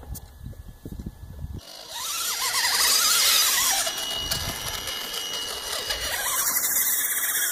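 RC Clodbuster monster truck's electric drive motors and gearboxes whining under throttle as it churns through mud, starting suddenly about a second and a half in, the whine rising and falling as the throttle changes.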